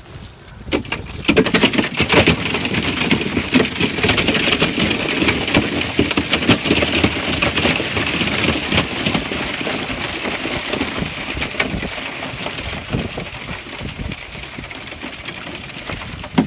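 A mass of live crabs pouring out of a bag into a cooler: a dense, loud clatter of shells and claws knocking against each other and the container, starting about a second in.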